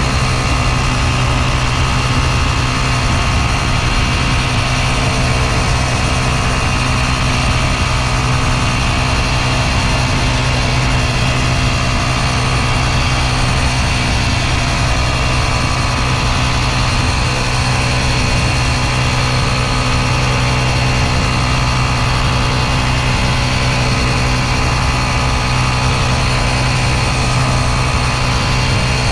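Vehicle engine running steadily for the whole stretch: a loud, even low hum that holds one pitch, with no revving or gear changes.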